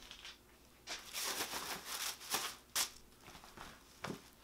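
Black wrapping paper rustling and crinkling in a cardboard shoe box as it is pulled back from a pair of sneakers, in a few short bursts, with a sharp tap near the end.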